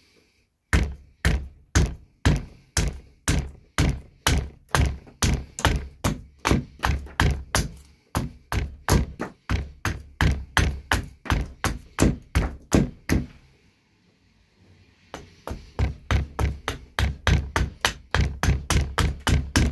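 Carving axe chopping into a green maple spoon blank held on a stump chopping block: a steady run of sharp, rhythmic strikes, about two to three a second. The strikes pause for a second or two about two-thirds of the way through, then resume a little faster.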